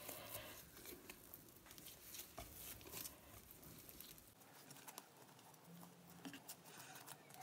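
Near silence with faint, scattered soft pats and clicks of hands shaping oiled msemen dough into balls on a plate.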